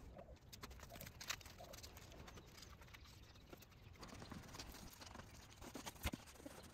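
Faint rubbing with scattered light taps and a few knocks: a gloved hand working ink into a metal drypoint plate with a cloth.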